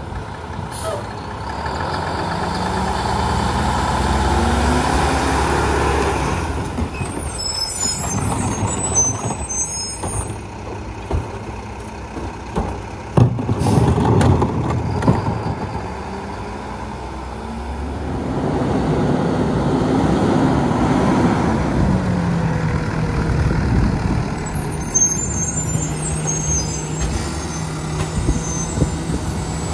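Garbage truck's diesel engine revving up and settling back twice while the truck works, with a high hiss of air twice and a loud bang about halfway through.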